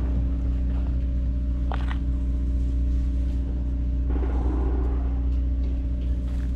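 An engine idling steadily: a low, even drone that does not change. A short scrape sounds about two seconds in, and a brief rustle around four seconds.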